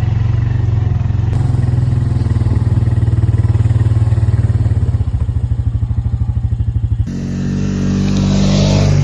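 A vehicle's engine running steadily with an even throbbing pulse, its pitch rising about seven seconds in as it speeds up.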